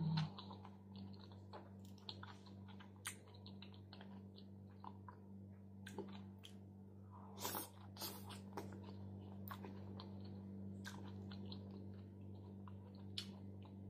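Close-miked chewing of leafy lettuce salad, soft crunching with scattered short crisp clicks now and then. A steady low hum lies underneath.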